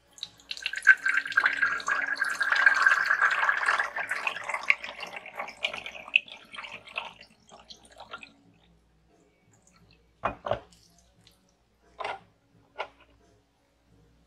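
Water poured from a glass pitcher into a clear shot-glass dispenser, splashing and trickling down into the shot glasses for about seven seconds before thinning to drips. Near the end come four short knocks, two close together and then two more.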